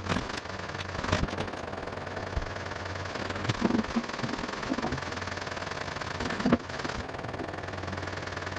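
Bodyshop work noise: a steady rushing hum with several sharp knocks and clatters of handled tools or parts, the loudest about six and a half seconds in.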